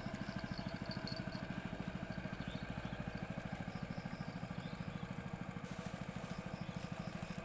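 A small engine running steadily at an even idle, its low, rapid beat unchanging throughout.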